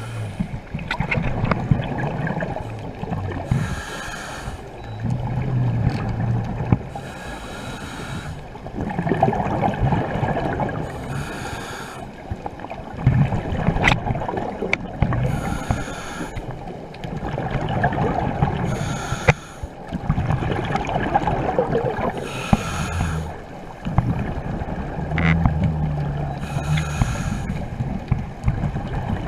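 Scuba diver breathing through a regulator underwater: slow, even breath cycles about every three to four seconds, each exhale a hissing, bubbling surge, over a steady low rumble of moving water.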